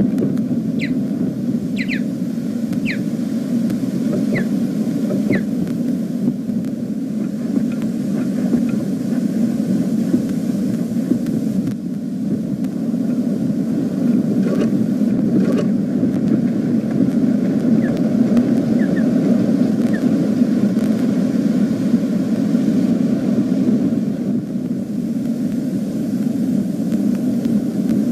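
A steady low rumble, with a handful of short, high, thin osprey calls between about one and six seconds in and a few fainter ones later.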